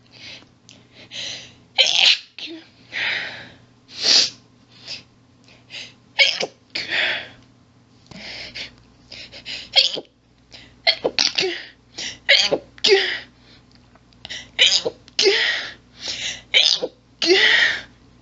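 A woman's intense, rapid sneezing fit: a long run of quick sneezes, one after another, with only brief pauses between them.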